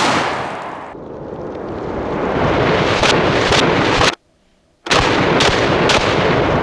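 IWI Tavor TS12 semi-automatic 12-gauge shotgun firing in quick bursts: three shots about half a second apart around three seconds in, a sudden break, then three more at the same pace. Each blast rings on heavily between the shots.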